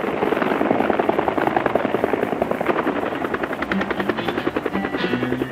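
Helicopter running, its rotor beating in a rapid, even rhythm over steady engine noise. Short musical notes come in near the end.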